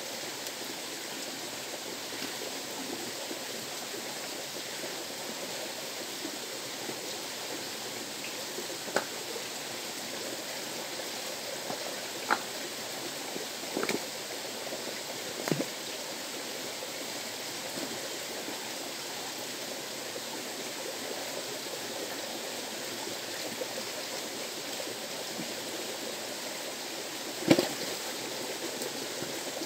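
River water rushing steadily. A few short, sharp knocks cut through it, the loudest near the end.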